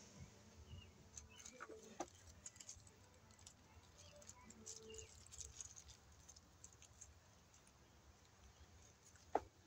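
Near silence: faint small clicks and handling noises from hands working the wires and wire nuts at a metal electrical box, with one sharper click near the end. Faint bird calls in the background.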